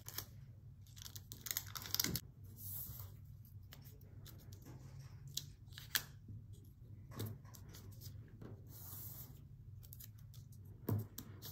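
Scattered paper rustles, crackles and light taps from hands handling a folded origami paper bookmark and pressing small paper spots onto it with glue dots. A faint low hum runs underneath.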